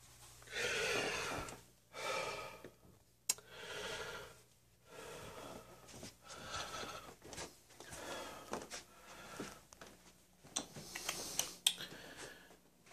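A person breathing audibly close to the microphone, about one breath a second, with a few faint clicks in between.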